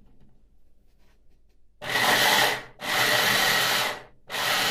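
Electric hand blender with a chopper attachment whirring as it chops onions, switched on in three pulses of about a second each, starting about two seconds in.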